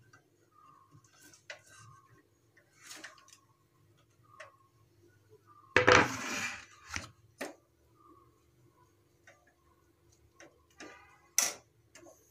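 Grated carrots tipped into boiling milk in a steel kadhai: a loud rush about six seconds in as they slide in, then a steel spoon knocking and scraping against the pan a few times.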